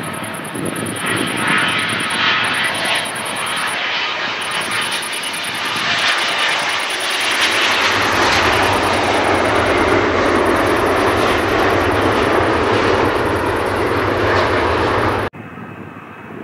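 Twin jet engines of a Boeing 777 passing low and close as it lands. The broad jet noise grows louder over the first several seconds and holds strong and deep. Near the end it cuts off abruptly to the fainter sound of a distant approaching airliner.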